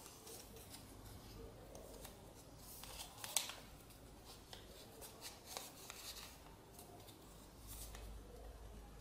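Sheet of paper crinkling and rustling as hands fold and press it into an origami crane, in scattered short crackles, the sharpest a little over three seconds in.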